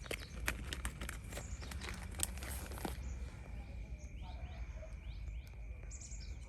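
Light crinkling and clicking for about three seconds, then faint short bird chirps, over a steady high-pitched tone.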